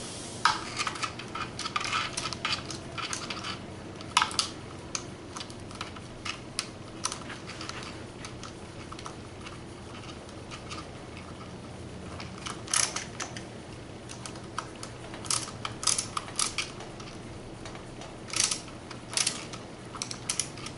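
Small plastic and metal parts of a Traxxas Rustler RC truck clicking and rattling under a hex driver as the shocks are screwed onto the chassis, in irregular bursts of sharp clicks.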